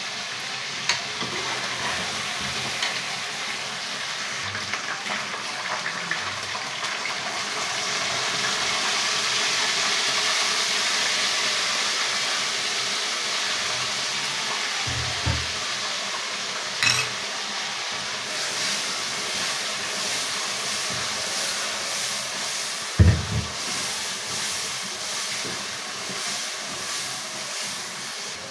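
The contents of a steel karahi sizzling steadily on a gas flame. A few knocks of utensils against the pan and plate, a loud one about two-thirds of the way through, and in the last third a run of quick stirring and scraping strokes from a wooden spatula.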